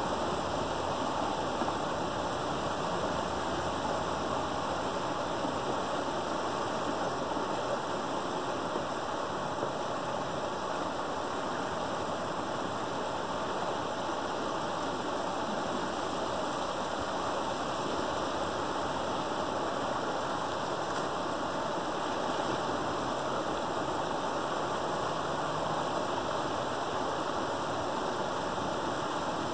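Creek water rushing steadily through a gap in a beaver dam, a constant splashing pour.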